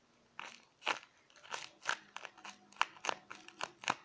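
A paper squishy made of taped paper being squeezed and handled, crinkling and crunching in short, irregular crackles, several a second.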